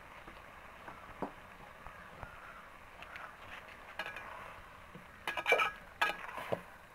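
Metal utensils clinking and scraping against an aluminium cooking pot, several sharp clinks close together about five to six and a half seconds in, after a few lighter clicks. A steady low hiss runs underneath.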